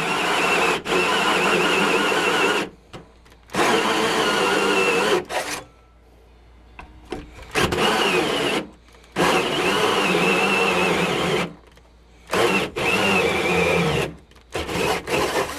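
Electric drill spinning a hole saw into a door to bore the doorknob hole. It runs in about six bursts of one to three seconds with short stops between, as the cut is eased through to avoid chip-out on the back face.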